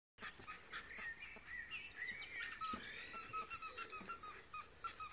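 Faint bird chirps: many short, high notes, some sliding in pitch, repeated several times a second.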